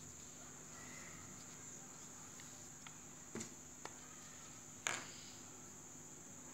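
A few light taps and clicks from pen and paper handling, the loudest about five seconds in, over a faint steady high-pitched insect chirring in the background.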